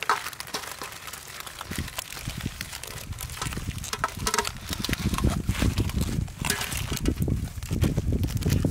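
Small plastic seasoning sachets crinkling and tearing as they are ripped open and squeezed out by hand, a run of irregular small crackles and clicks. A low rumble sits underneath from about two seconds in.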